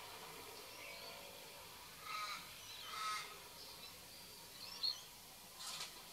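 Crow cawing twice, about a second apart, followed by a few high chirps from a small bird.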